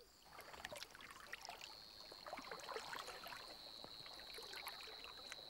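Faint, irregular splashing and trickling of shallow floodwater as lions wade through it, over a steady high-pitched insect trill.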